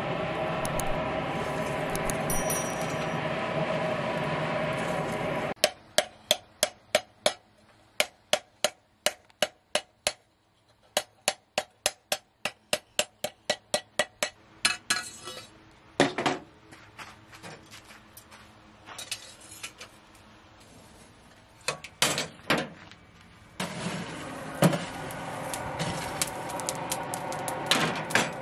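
Steady rushing of a charcoal forge fire under forced air. About five seconds in it gives way to a fast run of metal hammer blows, about three a second for some nine seconds, then a few single blows. The forge's steady rush returns near the end.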